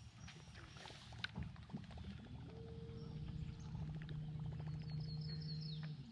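Bass boat's electric bow trolling motor running: a steady low hum that comes on about two seconds in and cuts off near the end. A few light clicks come before it.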